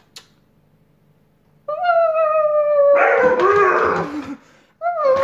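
Husky puppy howling: one long drawn-out call that slowly falls in pitch and turns rough and breathy partway through, then a second call begins near the end.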